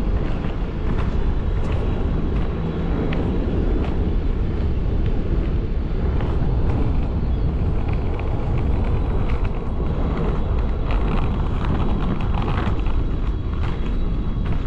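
Steady low rumble of wind buffeting the cap-mounted camera's microphone while riding, with many small clicks and rattles scattered through it.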